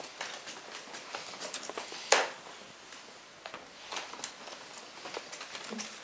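A cat's paws and claws clicking on a wooden parquet floor in quick, irregular steps as it chases. One much louder thump comes about two seconds in.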